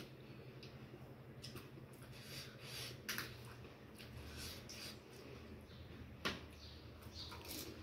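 Crisp pani puri shells crackling as one is handled, dipped and eaten, with two sharp cracks, the louder one about six seconds in, over a low steady hum.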